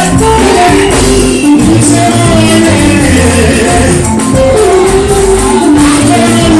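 Church worship music: singing over instruments, with a steady bass line and held melody notes.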